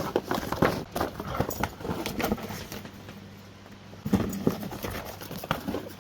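German Shorthaired Pointer licking his food bowl clean: quick, irregular clicks and knocks of tongue and bowl, pausing about three seconds in and starting again about a second later.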